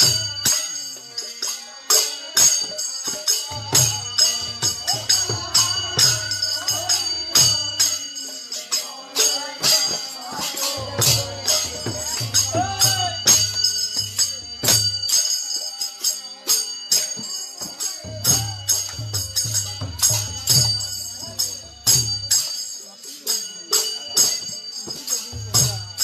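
Bengali village kirtan: a group of voices singing a devotional chant to steadily struck hand cymbals (kartal) that ring throughout. A drum joins in several stretches of a few seconds each and drops out between them.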